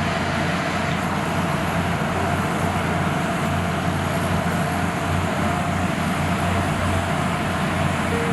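Steady rumble and rush of a moving passenger train, its cars rolling along the track with a constant low hum underneath.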